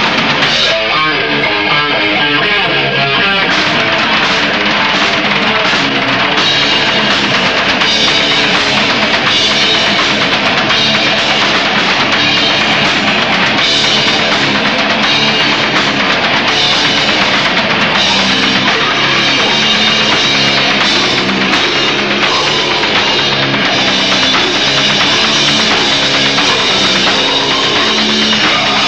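A death metal band playing loud in rehearsal: pounding drum kit with crashing cymbals under heavily distorted electric guitars, dense and continuous.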